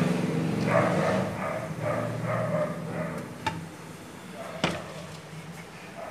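Muffled voice-like sounds for the first few seconds, then quieter. In the second half come two sharp metallic clicks as a steel pot with its lid is set down on the gas hob's burner grate.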